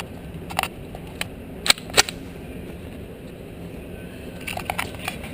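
Gunshots on a shooting range: a series of sharp single shots at irregular spacing, with three in quick succession near the end.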